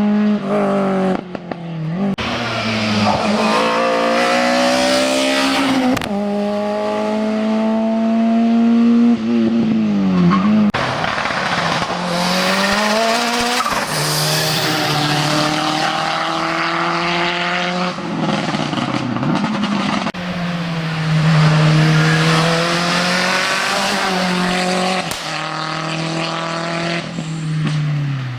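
Hillclimb race car engines at full throttle, the pitch rising through each gear and dropping back at every gear change, again and again.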